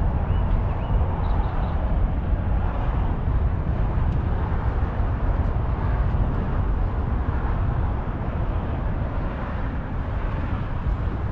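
Steady low outdoor rumble of road traffic, easing a little near the end, with a few short high chirps near the start.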